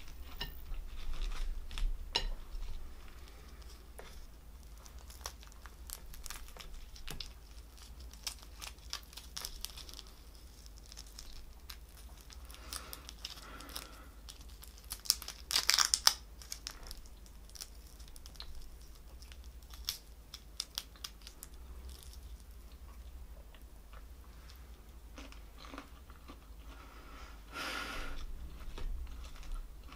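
Boiled prawns being peeled by hand: shells cracking, crinkling and tearing off between fingers, with chewing in between. The loudest tearing comes about halfway through, with another burst near the end.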